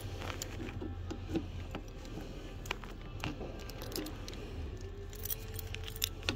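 Scattered light metallic clinks and rattles of keys and metal parts as a coin-operated bulk vending machine is handled and opened for its coins, over a steady low hum.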